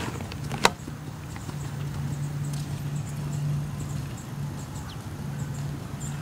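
A horse's hoofbeats on sand arena footing, soft and muffled, with one sharp click under a second in. A steady low hum runs under it from about half a second in.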